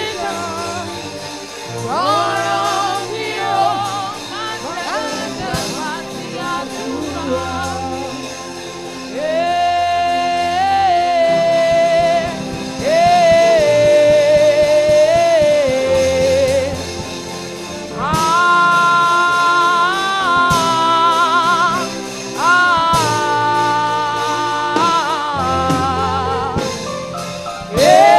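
A woman singing a slow gospel worship song into a microphone, with long held notes that waver in vibrato, over sustained instrumental backing.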